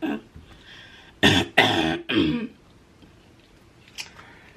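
A woman clearing her throat hard, twice in quick succession, her throat irritated by food that burned it.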